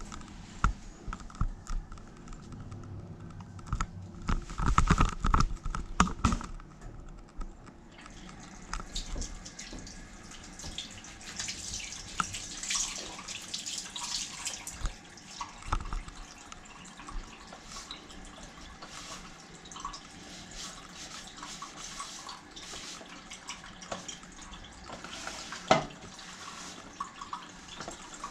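Water trickling and dripping at a sink, with irregular small clicks and knocks of handling. There is a louder clatter about five seconds in and one sharp knock near the end.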